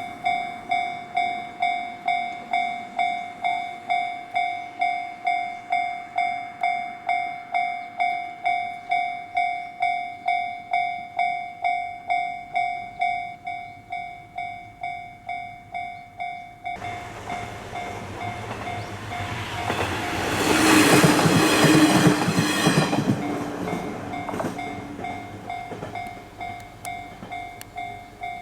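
A Japanese level-crossing warning bell rings in even electronic strokes, just under two a second. About 17 seconds in, a diesel train comes up and passes over the crossing with wheel clatter, loudest a few seconds later, while the bell keeps ringing.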